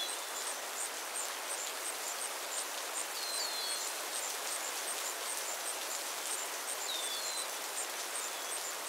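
Countryside ambience with a steady hiss under it. Over the hiss, an insect keeps up an even, very high pulsing chirp, and a bird gives short falling calls in small groups of one to three notes a few times.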